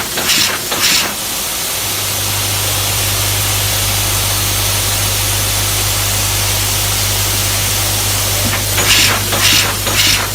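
Sacma SP25U four-die, four-blow cold header running. Its forming strokes beat about twice a second near the start and again near the end, and in between there is a steady hiss over a constant low hum.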